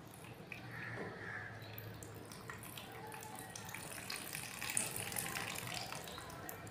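Water trickling in a thin stream from a tilted glass beaker into a container below, growing louder about halfway through: the water is being decanted off the gold-plated eyeglass scrap.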